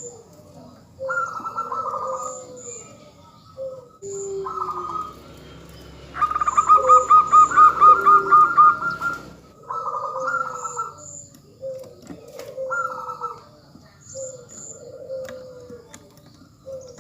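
Zebra doves (perkutut) cooing: short cooing phrases repeat about every two seconds, and from about six seconds in a louder run of about ten quick rolling coos lasts some three seconds. Faint high chirps of small birds sound over them.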